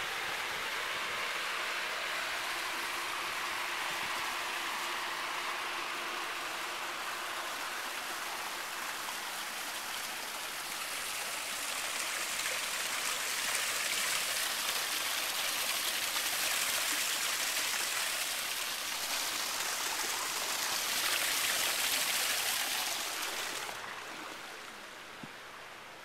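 Water splashing down a small landscape waterfall over stone boulders, a steady rushing hiss that grows louder in the middle and falls away near the end.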